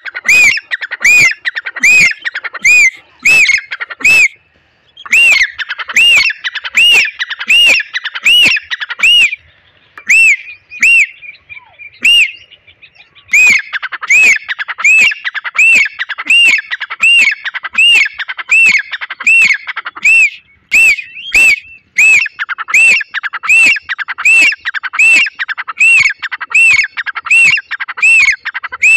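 Gray francolin calling: a loud, high-pitched run of repeated arched notes, about two a second. It breaks off briefly once and then for a few seconds before resuming.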